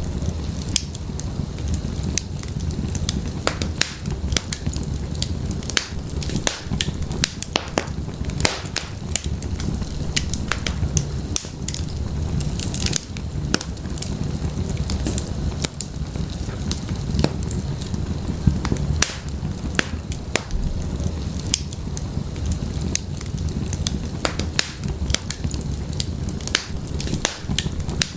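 Wood fire burning in a fireplace, with a steady low rumble of flames and frequent irregular sharp crackles and pops from the burning firewood.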